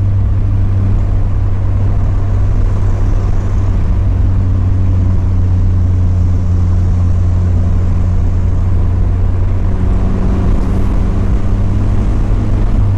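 Mazda Miata's four-cylinder engine droning steadily at cruising speed, with road and tyre noise underneath.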